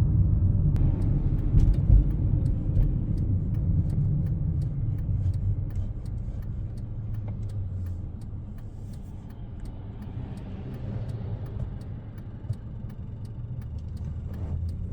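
Cabin sound of a Honda Civic Si driving: low engine and road rumble, louder over the first few seconds and easing to a steady, quieter run after about six seconds. A faint ticking repeats about twice a second throughout.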